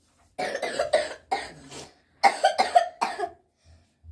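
A child coughing in two quick fits, each a string of about four coughs: the cough of a seasonal cold.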